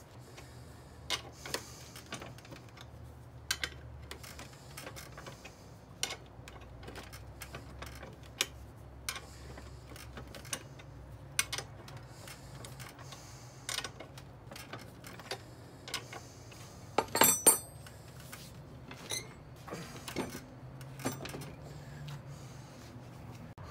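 Metal clinks and clatter of wrenches, nuts and bolts being handled as a steel blade attachment is bolted onto a hi-lift jack's bar: scattered sharp clicks, with a louder run of clanks about two-thirds of the way through.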